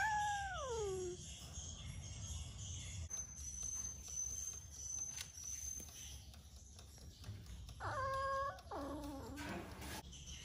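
A sick kitten meowing: one drawn-out meow at the start that rises and then falls in pitch, and a second, shorter meow about eight seconds in that drops in pitch.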